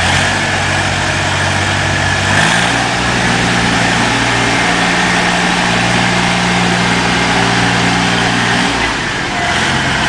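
Engine of a YZD3.5 road roller running steadily; its pitch steps up about two and a half seconds in, holds, then drops back near the end.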